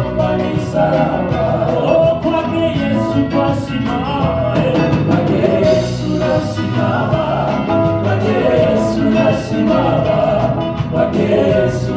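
Live gospel worship music: a band playing a song with a steady beat, with singing over it.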